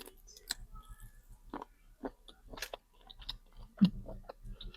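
A person chewing seafood close to the microphone: irregular mouth clicks and smacks, with one louder bite-like smack nearly four seconds in.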